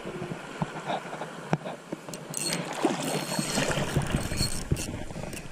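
Surf water sloshing and lapping close around a wading angler, with scattered clicks and knocks from handling a spinning reel.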